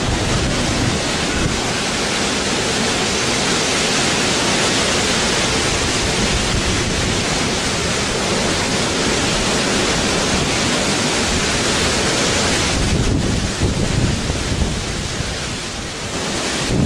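Steady loud rushing hiss of heavy rain and wind, with a gusty rumble low down. It thins briefly about thirteen seconds in, then builds again.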